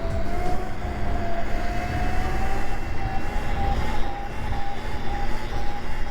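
Modded Razor MX500 electric dirt bike's brushless motor whining as it rides, the whine climbing slowly in pitch, over a steady low rumble.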